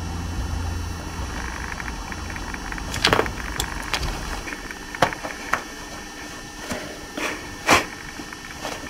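Room noise with a low hum that fades after the first few seconds, then about five scattered knocks and rustles of people moving on a sofa and handling things.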